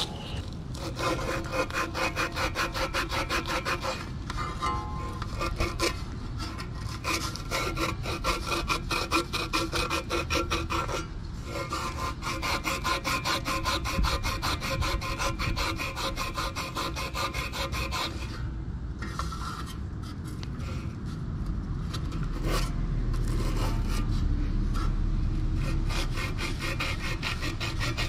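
Rapid, rhythmic metal-on-metal rubbing and scraping as a condenser fan blade's stuck hub is worked back and forth on the fan motor shaft to free it. The strokes come thick and fast at first and thin out about two-thirds of the way through.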